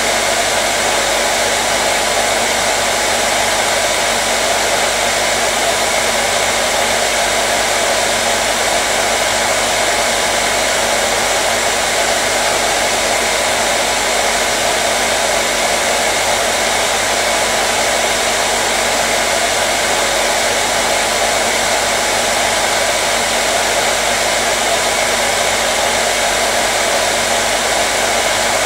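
Hair dryer running steadily: an even, unbroken rush of blowing air with a faint motor hum.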